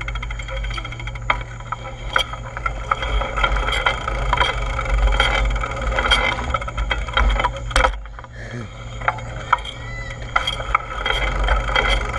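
A bicycle being ridden: a steady low rumble, typical of wind on the microphone, with frequent clicks and rattles throughout, briefly easing off about two-thirds of the way through.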